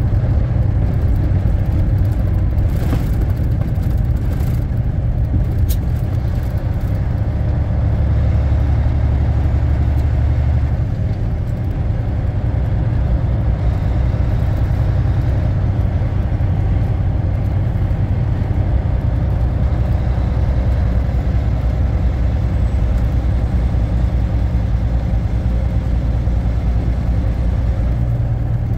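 Volvo VNL780 semi truck cruising on the highway: a steady low diesel engine drone with road and tyre noise.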